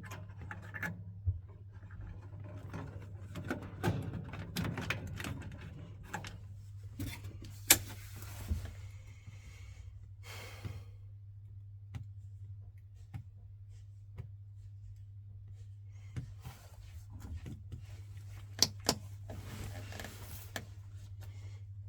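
Hands working on boiler parts: scattered clicks, knocks and rustling, with a sharp click about eight seconds in and two more close together near the end, over a steady low hum.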